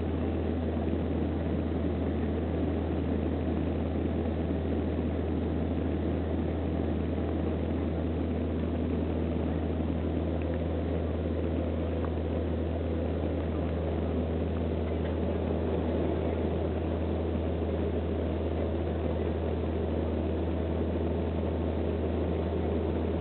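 Steady drone of a turboprop airliner's engines and propellers heard inside the passenger cabin, with a strong low hum.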